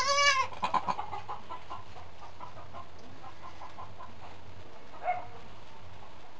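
A newborn goat kid gives one short, high bleat right at the start. A quick run of short, soft calls follows over the next second or so, and there is one brief call about five seconds in.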